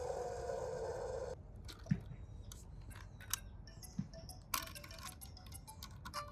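A rattling noise stops abruptly about a second in, typical of a die-cast toy minicar finishing its run down a plastic slide. A few light clicks follow, and a soft chiming tune starts near the end.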